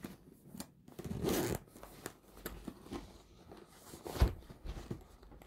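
Zipper on a fabric drone shoulder bag being pulled open in a series of short strokes, the longest about a second in, with a sharp knock about four seconds in.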